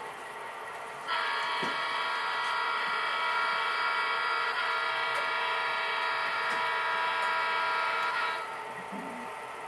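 Sound decoder of an HO-scale Santa Fe F-unit diesel locomotive blowing its horn through the model's small speaker: one long, steady blast of about seven seconds that starts about a second in and cuts off near the end. Under it is the decoder's steady diesel engine sound.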